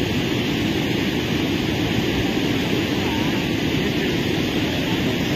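Steady rushing noise of a flooded, fast-flowing river churning through rapids.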